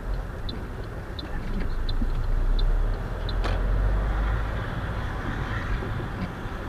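Car engine and road rumble heard inside the cabin as the car pulls out of a junction and picks up speed, the rumble swelling a couple of seconds in. The turn-signal relay ticks about one and a half times a second, then stops a little over three seconds in as the indicator cancels, with one sharp click just after.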